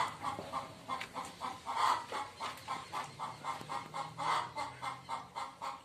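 A hen clucking in a quick, steady series of about five clucks a second, with louder calls about two seconds and four seconds in.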